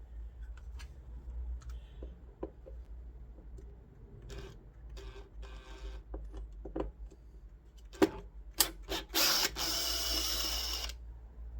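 Screws being taken out of a cordless chop saw's housing: light clicks and knocks of the tool and loose parts, a short rattling whir about five seconds in, and a louder whir lasting almost two seconds near the end, like a small power driver spinning a screw out.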